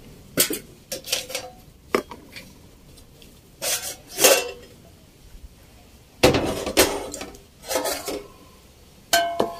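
Stainless steel pots, bowls and lids clinking and clattering as they are lifted off, moved and set down. There are a few light clicks at first, then louder clanks with brief metallic ringing, the loudest about six seconds in.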